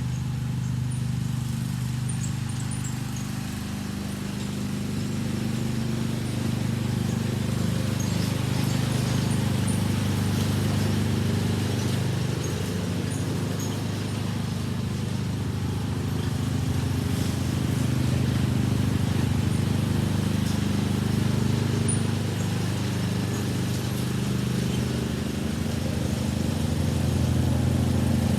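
John Deere riding lawn mower's engine running steadily under mowing load, its level easing and swelling a little as it goes.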